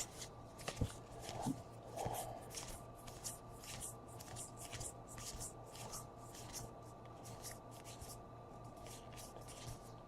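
Baseball trading cards being flipped through by hand: soft, quick flicks and slides of card stock, a few a second, faint over a low steady hum.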